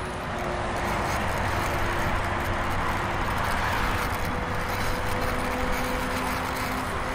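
Plastic toy jeep pushed by hand across a terrazzo floor, its hard plastic wheels rolling with a steady, even grinding noise.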